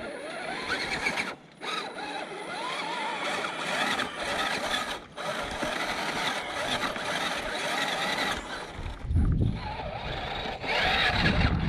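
1/10-scale electric RC crawler's motor and gearbox whining as it crawls over rock, the whine wavering with the throttle. A heavy low rumble joins in near the end.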